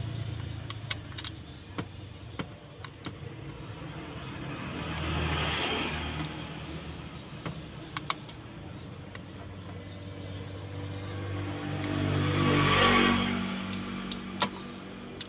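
Scattered small clicks and taps of a phone's plastic frame and circuit board being handled, under two slow swells of a passing vehicle, the louder one near the end.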